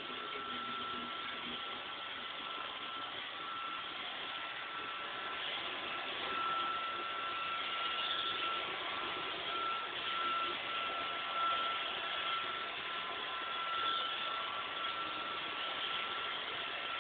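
Roomba robot vacuum running: a steady whir of its motors and brushes with a thin, high whine held throughout.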